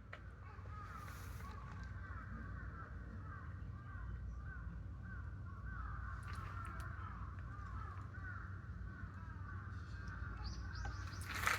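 Birds calling all the time, many short chirps overlapping one another, over a steady low rumble. A louder, closer call comes near the end.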